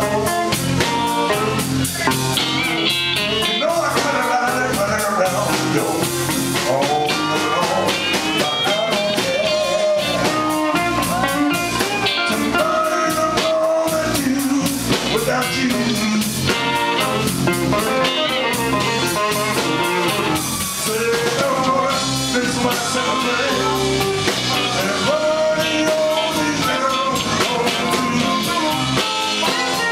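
Live blues band playing: an amplified harmonica plays long, bending notes over electric bass, drum kit and electric guitars.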